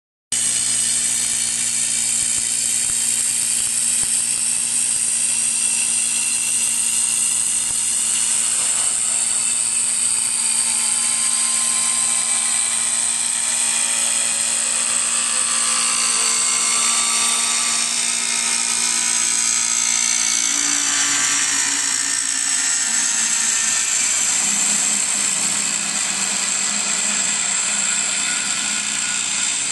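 Wood-turning lathe for chair spindles running steadily: a motor hum under a high whine that drifts slowly in pitch.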